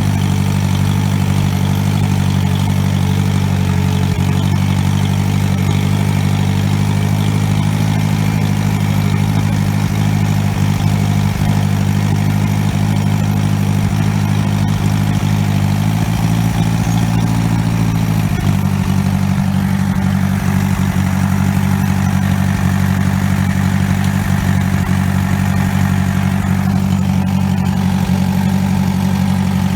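A 1952 Massey Harris Pony 812 tractor's small four-cylinder engine runs steadily. About halfway through it briefly picks up speed, then settles back.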